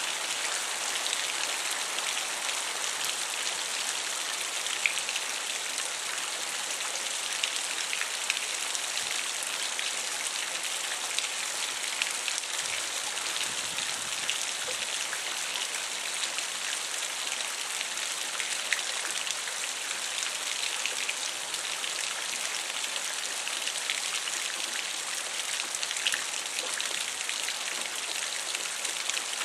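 Thunderstorm rain pouring steadily, with scattered sharper drop hits standing out from the hiss.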